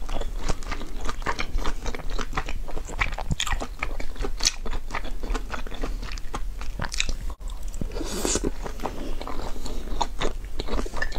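Close-miked chewing of soup dumplings: a dense run of quick, wet mouth clicks and smacks. There is a brief break about seven seconds in, then a short breathy rush.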